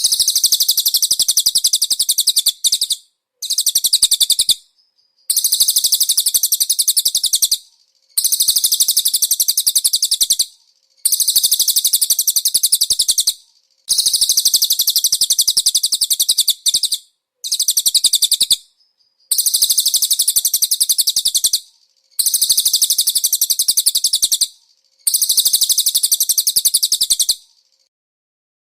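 Cililin bird singing: about ten high, rapid, chattering trills of two to three seconds each, separated by short pauses, the last ending shortly before the end.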